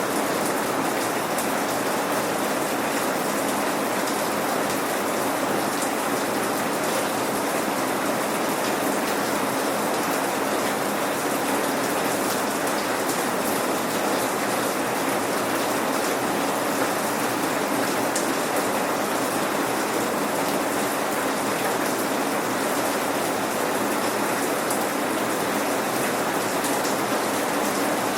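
Steady rain falling, an even hiss of raindrops pattering on surfaces, with no thunder.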